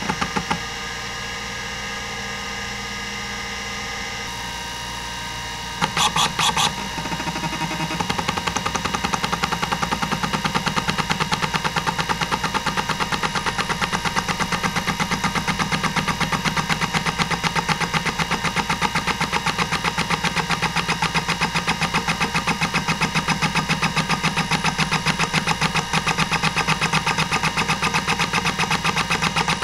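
Hitachi DK505-2 26 MB stepper-motor hard drive running, with its spindle whine steady under everything. A few loud clicks come near the start and a short burst of chatter about six seconds in. From about eight seconds on the head stepper chatters in a fast, even rhythm as the drive works through a seek-time test.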